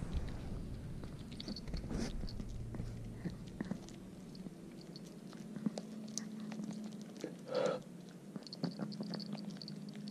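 A Chihuahua gnawing on a chicken foot: scattered small clicks and crunches of teeth on bone and skin. One brief louder sound comes about three-quarters of the way through.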